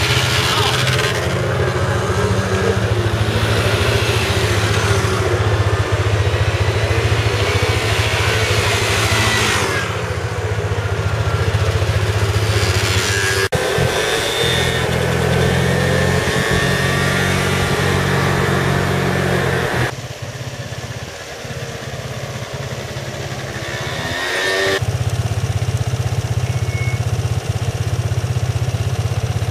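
Small motor scooters running along a road, heard from a riding scooter: a steady engine drone mixed with wind noise, the engine pitch rising and falling as they speed up and slow down. The sound changes abruptly several times where the shots change.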